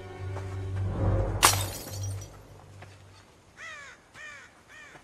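Background music, then a glass bottle smashing about a second and a half in. After it a crow caws three times.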